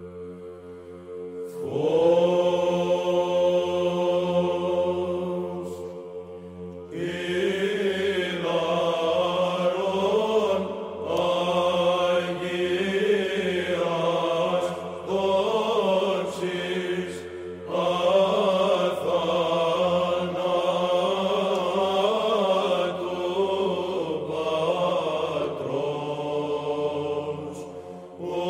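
Orthodox Byzantine chant: a voice sings a slow, wavering melody over a steady held drone (ison). The melody comes in about a second and a half in and breaks off briefly about a quarter of the way through before going on.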